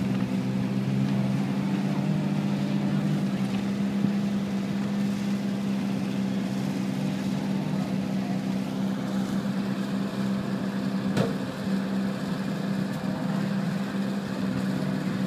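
Mk2 Ford Escort rally car's engine idling steadily close by, with a single sharp click about eleven seconds in.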